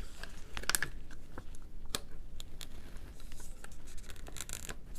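Foil lid being peeled off a yogurt cup: scratchy crinkling with scattered small clicks.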